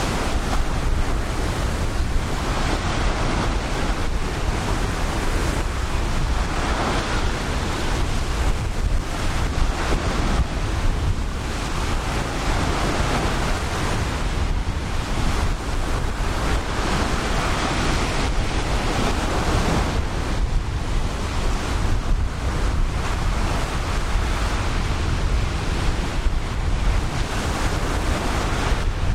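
Ocean surf washing onto a beach, swelling every few seconds, with steady wind buffeting the microphone.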